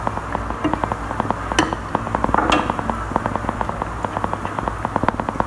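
Shrimp balls deep-frying in a pot of hot oil, a dense, steady crackle of many small pops, with two sharper clicks about one and a half and two and a half seconds in.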